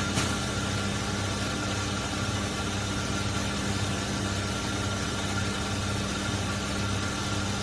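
Semi truck's diesel engine idling steadily with a pulsing low hum, and a single click just after the start.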